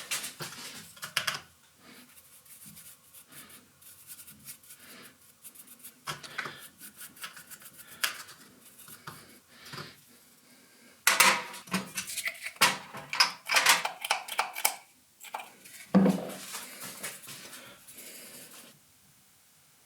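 Small metal parts of a hand vice clinking and scraping as they are handled on a workbench. The clicks are scattered at first, then come thick and fast for a few seconds past the middle. A single heavier knock follows, and the sound dies away just before the end.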